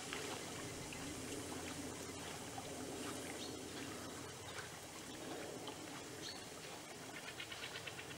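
Outdoor pond ambience: a steady faint wash of water and air noise, with a few faint bird calls near the end.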